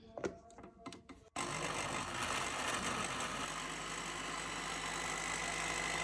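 A few clicks and knocks, then about 1.3 s in a countertop blender's motor starts abruptly and runs steadily at full speed, blending fruit chunks and liquid into a smoothie.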